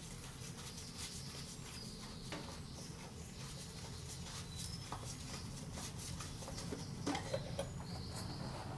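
Faint scattered clicks and light knocks of the oil filter housing cap being worked loose by hand on a 1.6 HDI diesel, with brief faint scrapes. A steady low hum runs underneath.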